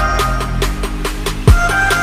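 Background electronic music with a steady beat of short hits over held chords. A deep bass hit falling in pitch lands about a second and a half in and is the loudest moment.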